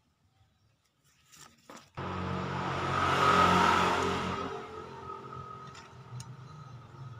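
A few light clicks, then about two seconds in a motor vehicle passing by: engine and road noise that comes in suddenly, swells, and slowly fades away.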